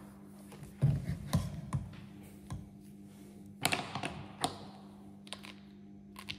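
Handling noise from a MagnetoSpeed chronograph being strapped onto a rifle's suppressor: scattered clicks and knocks of the bracket and strap against the barrel, in a cluster about a second in and another about four seconds in, over a steady low hum.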